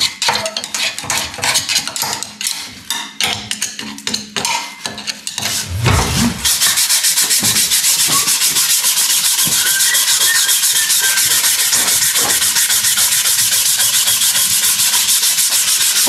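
A tool scraping and rasping inside a steel bore at the hitch of a Kuhn disc mower, with irregular rubbing strokes at first. From about six seconds in it turns into a steady, fast rasping rhythm of several strokes a second.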